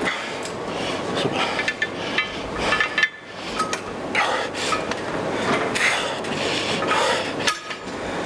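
Gym weight plates clanking: a series of sharp metal knocks, several ringing briefly, over steady background noise.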